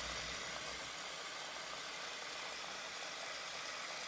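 A stream of water pouring into a plastic dehumidifier reservoir, a faint steady hiss.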